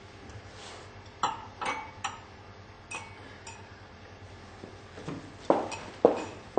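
Tableware being set down on a wooden restaurant table: a scatter of light clinks and knocks of glass and plates, with two louder knocks near the end.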